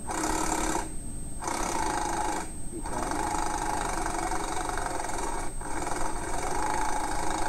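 Cordless impact wrench hammering a nut tight on the bottom mounting bolt of an RV trailer shock absorber, in bursts: two short ones, then a longer run with a brief break.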